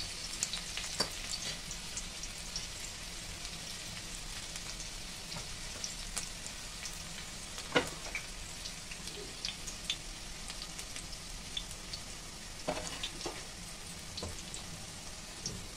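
Finely chopped onion sizzling in a spoonful of hot oil in a steel kadai: a steady hiss dotted with small crackles, with a few sharper clicks about eight and thirteen seconds in.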